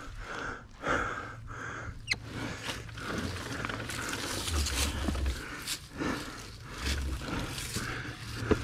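A person breathing hard, with a run of loud, rough breaths close to the microphone.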